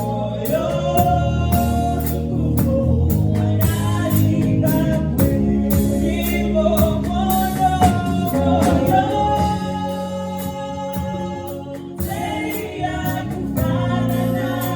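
Gospel worship music: voices singing over a band with a steady drum beat.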